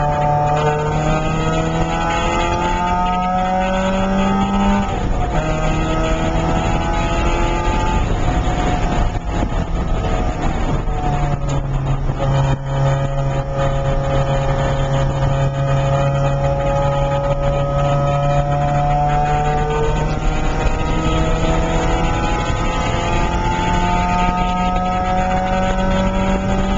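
Inside the cabin, a Porsche 968's 3.0-litre four-cylinder engine runs hard on track, its pitch climbing in long pulls that break at gear changes. Around nine to eleven seconds in the pitch drops with a rough patch, then holds steady for several seconds before climbing again, over road and wind noise.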